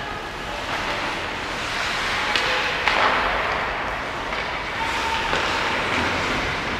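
Ice hockey practice rink ambience: skate blades scraping the ice, with a couple of sharp clacks from sticks or pucks about two and a half and three seconds in.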